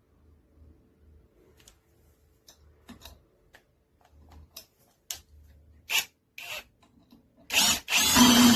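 INGCO 20V brushless cordless impact driver run in two short, loud bursts near the end, after a few sharp clicks of the tool being handled.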